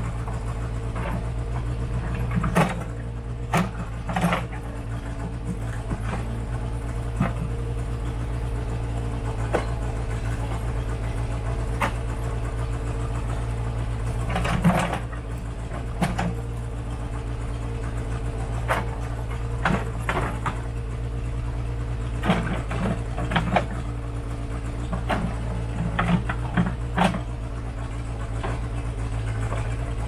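Case 580C backhoe's engine running steadily under a digging load, with sharp clanks and knocks every few seconds from the bucket working through rocky clay.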